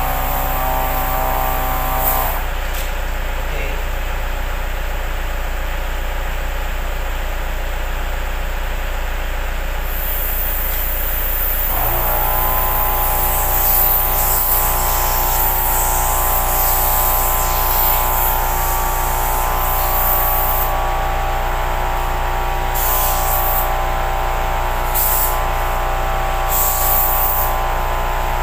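Mitsushi XH-628A portable 12-volt air compressor running as it inflates a car tyre: its motor stops about two seconds in and starts again about twelve seconds in, running steadily from then on, with bouts of air hissing. A steady low hum lies underneath.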